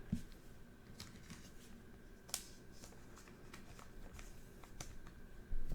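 Trading cards being handled: faint clicks and slides as cards are flipped through a pack, the sharpest about two seconds in, with a dull thump near the end.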